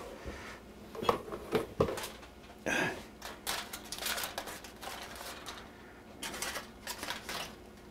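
Aluminium foil crinkling and rustling in irregular crackles as it is pulled loose from the edges of a baking dish, with a louder crackle about three seconds in.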